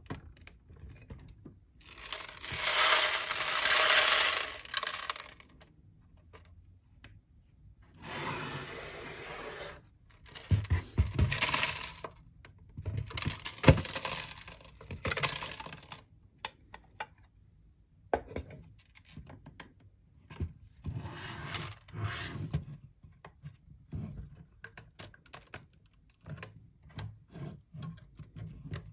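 LEGO bricks being taken apart by hand: the clear plastic bottle sections of the Ship in a Bottle set are pried off, with clicks, snaps, scraping and clatter of hard plastic pieces in irregular bursts. The loudest is a long clatter about two seconds in.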